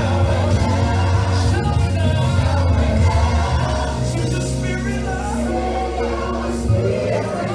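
Recorded gospel song with solo and choir singing over a steady bass and keyboard accompaniment.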